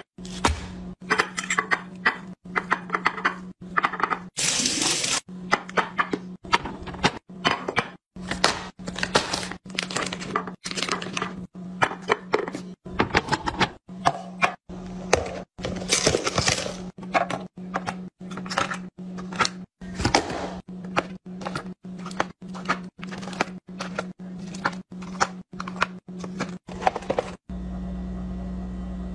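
Glass food containers with bamboo lids being set down and stacked: a rapid, irregular run of clicks, clinks and knocks, broken by many short abrupt cuts.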